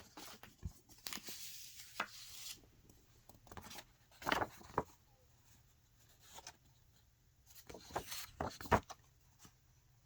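Paper and card being handled: a longer rustle of paper sliding, then sharp crinkles and taps in two clusters, about halfway through and again near the end.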